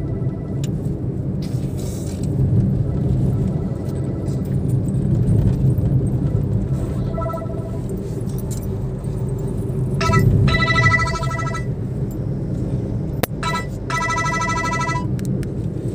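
Steady low rumble of engine and road noise inside a moving Suzuki car's cabin. Twice, two-thirds of the way through and again near the end, a brief high-pitched ringing sound rises above it.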